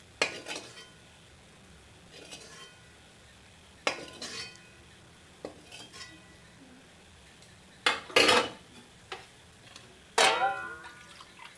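Metal dishes and utensils clinking during a meal: several sharp clinks a few seconds apart, each ringing briefly.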